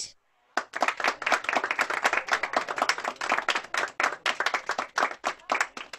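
An audience clapping in applause. Many hands clap densely from about half a second in, thinning out near the end.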